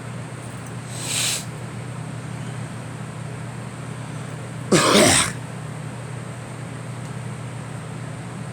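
A girl coughing: a short breathy burst about a second in, then one louder, harsher cough about five seconds in, over a steady low hum.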